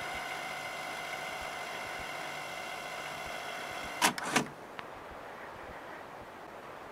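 Telephone answering-machine recording playing back: a steady electrical hum with many overtones, cut off by two loud clicks about four seconds in, then a faint line hiss with a few small ticks.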